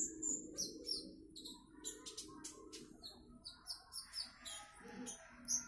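A konin (kolibri ninja sunbird) singing its rapid 'trotol' chatter: fast runs of short, high, thin chirps and twitters, repeated many times in quick succession.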